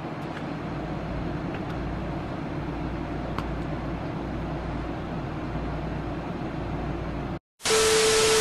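Steady low background hiss with a few faint clicks, then a short dropout to silence near the end, followed by a loud TV-static effect: harsh hiss with a steady beep tone over it.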